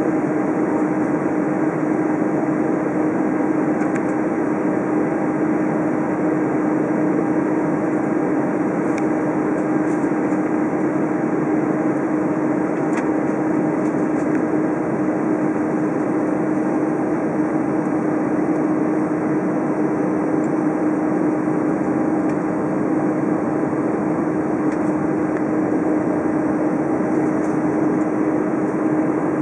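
Airbus A320 cabin noise on the ground before takeoff: an even hum of the engines and air conditioning, with a constant low drone, holding steady throughout.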